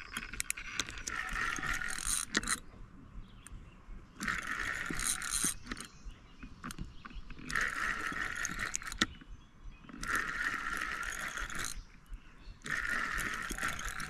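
Spinning reel being cranked in short spells, its gears whirring about five times with brief pauses between: a hooked blue catfish being reeled in.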